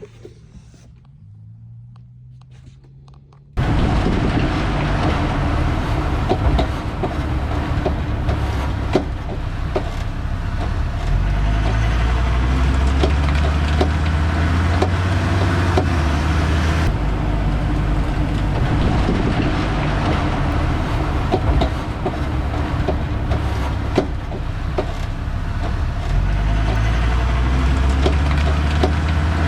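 Ford Transit van driving, heard from its rear suspension: steady road and tyre noise with the engine rising in pitch as it accelerates, and scattered sharp knocks from the rear, a sign of worn leaf springs. It turns suddenly much louder about three and a half seconds in.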